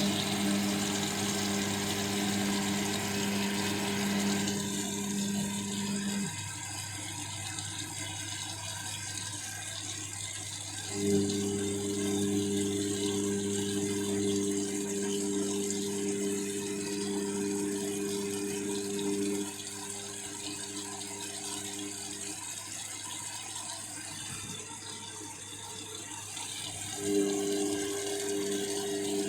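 Washing machine filling with water at the start of its wash cycle: a steady rush of water, with a humming tone that stops and starts again a few times.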